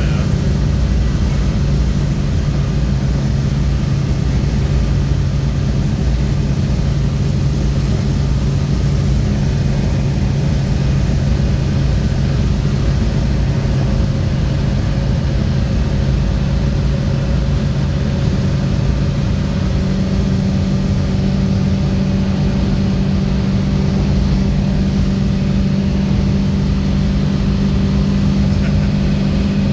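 1967 Camaro's engine running steadily at highway cruising speed with tyre and road noise, heard from inside the cabin as a constant low drone.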